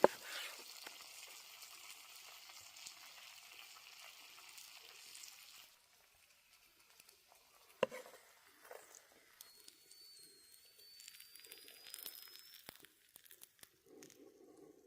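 Food sizzling as it fries, a steady hiss that cuts off about six seconds in. After that come quieter scattered clicks and taps.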